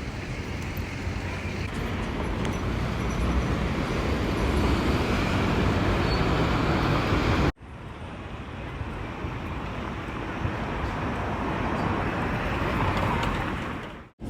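Steady rumble of road traffic or a vehicle in motion, slowly swelling. It is in two stretches, broken by a sudden cut about halfway through.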